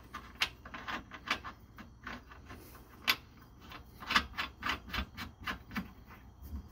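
Irregular small metallic clicks and ticks as a nut is spun by hand onto the lower mounting bolt of a rear shock absorber.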